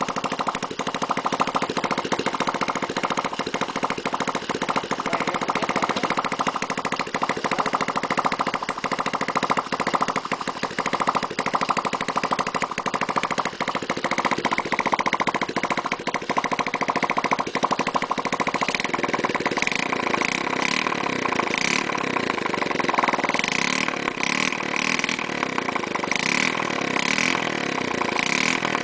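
Honda 67 small single-cylinder motorcycle engine running steadily under test. About two-thirds of the way through its note turns harsher and higher, as if revved up.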